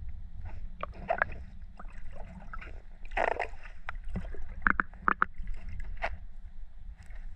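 Shallow seawater sloshing and splashing as someone wades with a crab scoop net, with several sharp splashes or knocks about two-thirds of the way through, over a steady low rumble.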